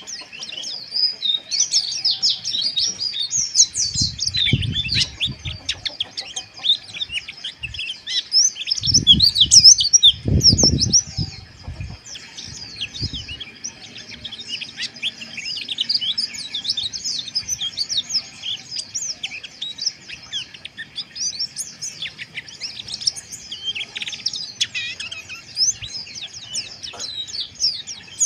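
White-eyes (pleci) twittering in a dense, rapid, unbroken stream of high chirps, with several birds calling over one another. Low rumbling noise breaks in twice, briefly about four seconds in and louder from about nine to twelve seconds in.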